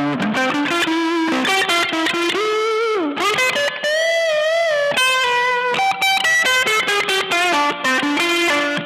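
Electric guitar through an EarthQuaker Devices overdrive pedal playing a freestyle single-note lead. There is a string bend about two and a half seconds in, then a held note with vibrato, then quicker runs of notes.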